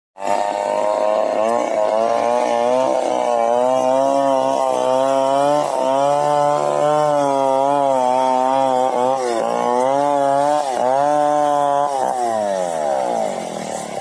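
Two-stroke chainsaw running at high revs, its pitch wavering and dipping briefly several times. About twelve seconds in, the pitch falls away as the engine slows toward idle.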